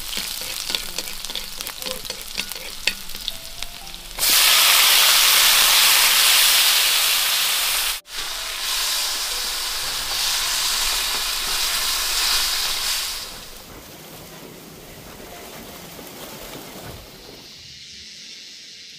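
Tofu frying in hot oil in a pan: crackling with small clicks of stirring at first, then a sudden loud sizzle about four seconds in that carries on for several seconds before settling to a quieter hiss.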